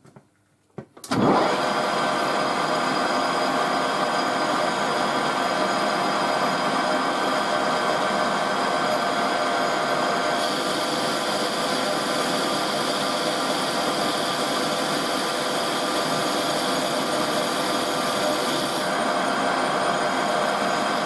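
A metal-turning lathe, set to its next speed up of 1255 rpm, starts after a couple of clicks about a second in and runs steadily with a whine of several steady tones. About halfway a higher hiss joins and drops away again near the end.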